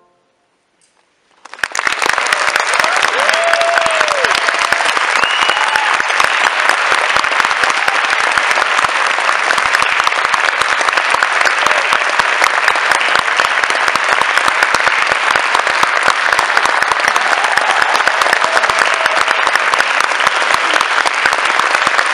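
Concert-hall audience applauding, breaking out sharply about a second and a half in after a brief silence and then going on steadily and loudly. A few short calls rise out of the clapping soon after it starts.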